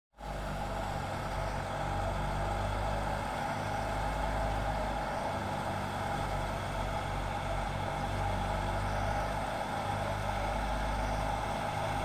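Tractor-driven wheat thresher running steadily during threshing, a continuous engine drone and machine hum.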